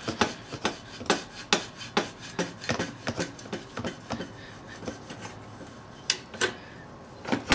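Metal exhaust pipe of a Suzuki DRZ-125L scraping and knocking against the bike's frame as it is worked loose and pulled out by hand. It makes irregular rubbing scrapes and clicks, with a few louder knocks near the end.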